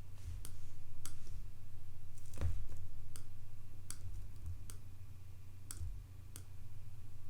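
Computer mouse clicking, about eight separate sharp clicks at irregular intervals, over a steady low electrical hum.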